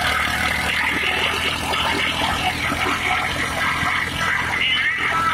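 Massey Ferguson 240 tractor's three-cylinder diesel running steadily under load, driving a hitch-mounted wheat thresher, with the thresher's steady clatter and hum.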